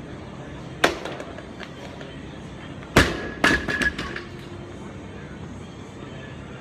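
A barbell loaded with bumper plates is dropped onto the lifting platform about three seconds in. It lands with a loud bang and bounces four more times with a brief metallic ring. A single sharp thud comes earlier, about a second in, during the lift.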